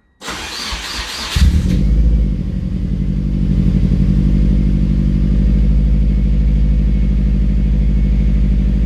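Turbocharged 1993 Subaru Impreza WRX flat-four engine being started: the starter cranks for about a second, then the engine catches and settles into a steady idle.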